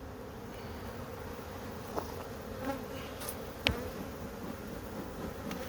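Honeybees buzzing in a steady hum around an open hive, with a couple of sharp knocks about two and three and a half seconds in. The beekeeper takes the buzzing for bees getting mad at the hive being open too long.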